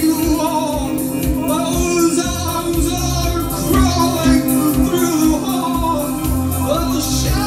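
Live band playing a dark, synth-driven rock song: keyboard synthesizer and electric guitar over a steady beat, with a singing voice. It is heard through a phone's microphone.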